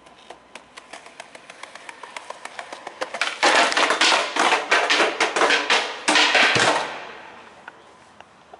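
Skateboard rolling in over paving with a run of clacks that grow louder, then grinding along a ledge for about three seconds, loud and rough, fading out near the end.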